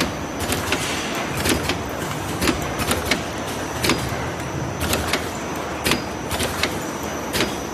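Automatic hook-hanger box cartoning machine running: a steady mechanical din with frequent sharp clacks, about two or three a second at uneven spacing, and a thin steady high whine.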